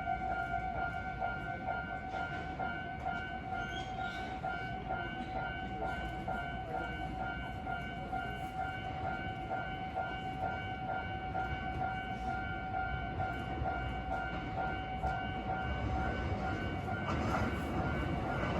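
Railway level-crossing warning bell ringing in fast, even repeated strokes. Near the end the low rumble of the approaching Kotoden 1100/1070 series train grows louder.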